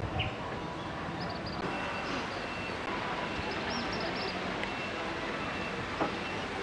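Steady rumbling noise of a running vehicle, with a faint high steady tone.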